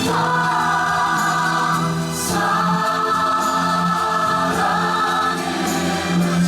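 A stage-musical ensemble singing long held notes in chorus over the accompaniment, with a change of chord a little over two seconds in.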